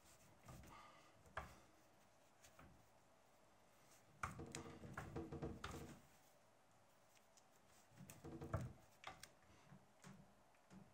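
Hands folding and pressing glued leather edges inward: quiet rustling and rubbing in two spells, about four seconds in and again about eight seconds in, with a few small clicks and taps between.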